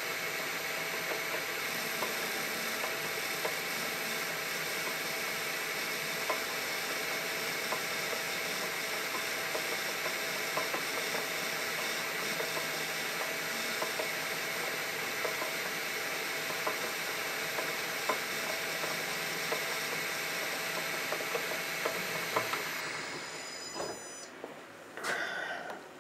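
Metal lathe running under power while turning down a small brass valve-guide blank: a steady motor and gear whine with the hiss of the cutting tool and faint ticks of chips. The lathe winds down about 23 seconds in, with a short knock near the end.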